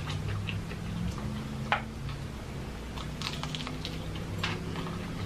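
Close-up chewing and gnawing on a piece of fried chicken near the bone and cartilage, with wet mouth sounds and a few sharp crunchy clicks, the loudest about a second and a half in and a cluster near the end. A low hum runs underneath.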